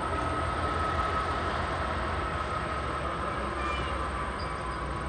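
CSX diesel freight locomotive moving slowly along the track: a steady low engine rumble with a high steady whine over it, the whine sinking slightly in pitch near the end.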